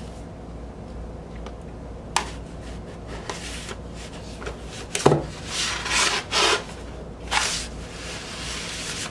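Cardboard LP jacket and paper insert being handled on a desk: a light tap, then a sharp knock about five seconds in, followed by paper and card sliding and rubbing as the printed insert is drawn out of the jacket.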